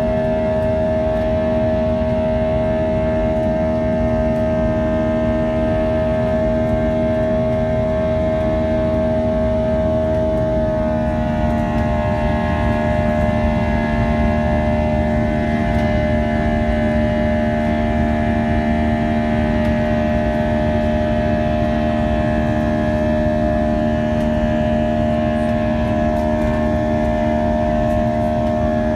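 Airbus A320's IAE V2500 turbofan engines buzzing at climb thrust, heard from inside the cabin: a loud, steady drone of many held tones over a low rumble. About eleven seconds in, the tones shift slightly lower and rearrange, as the engine power is changed.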